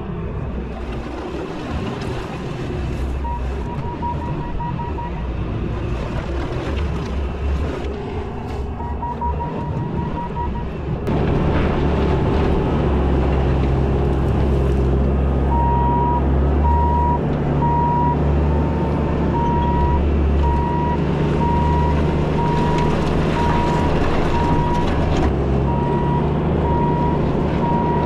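Bobcat T650 compact track loader's diesel engine running under work, getting louder about 11 seconds in, with its backup alarm beeping while reversing: in short spells early on, then steadily about once a second through the second half.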